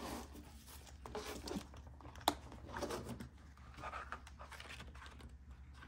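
Hands handling budget binders and leafing through clear plastic zip envelopes: soft rustling and crinkling, with one sharp click a little over two seconds in.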